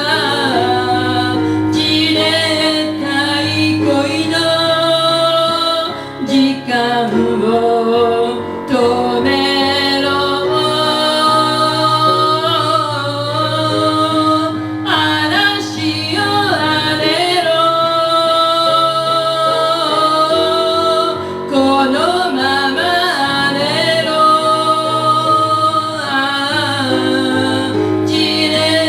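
Music: a woman singing with instrumental accompaniment, long held notes over a steady backing.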